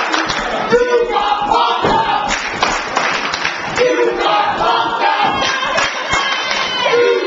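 Wrestling crowd chanting together in a hall, with repeated held syllables and clapping.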